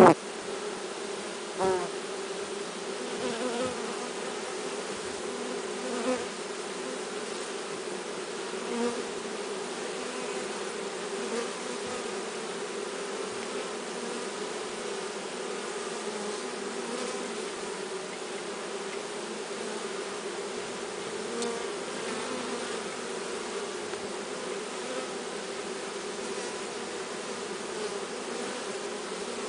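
Honeybee swarm buzzing steadily in a mass hum, with a few brief louder sounds, the loudest at the very start and another just under two seconds in.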